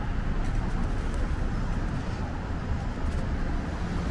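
Steady city street traffic noise: a constant low rumble of passing vehicles with a general hiss over it.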